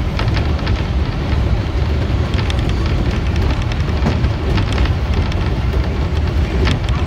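Keihan Main Line electric train running, heard from the front car: a steady low rumble of wheels on the track with scattered sharp clicks and rattles.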